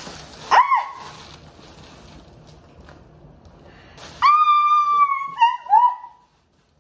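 A woman's high-pitched squeals of excitement: a short rising-and-falling squeal about half a second in, then a long held squeal around four seconds in followed by two or three shorter ones.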